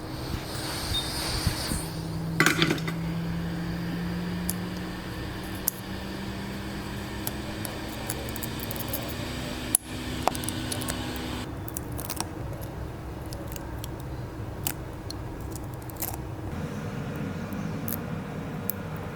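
Small metal tools clicking and tapping on a repair bench. A steady low hum slowly rises in pitch and cuts off about two-thirds of the way through.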